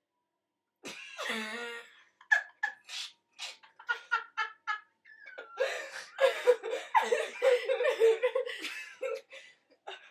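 Two women laughing: a burst about a second in, then short giggles, breaking into long, continuous laughter from about halfway through.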